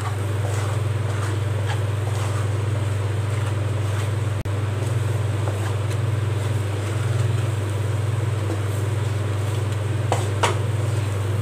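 A steady low hum, with faint scraping of a wooden spatula stirring thick semolina dough in a nonstick pan and two short knocks near the end.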